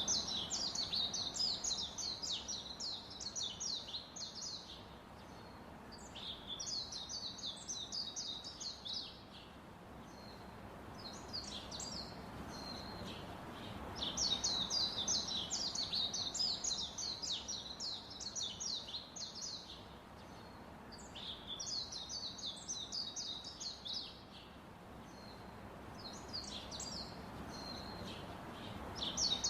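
Small birds chirping rapidly and high-pitched in bouts of a few seconds, with short pauses between bouts, over steady background noise.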